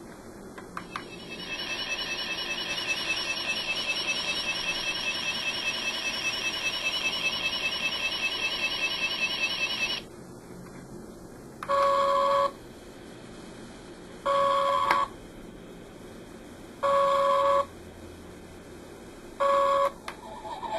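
Electronic sound effects from the sound module of a Star Trek original-series tricorder replica. A warbling, trilling electronic tone plays for about nine seconds and stops, then four short, steady beeps follow at even intervals of about two and a half seconds.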